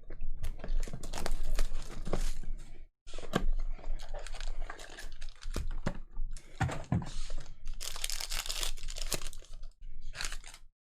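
Foil wrapper of a Panini NBA Hoops Premium Stock trading card pack being torn open and crinkled by hand, with the rustle and clicks of cards being handled.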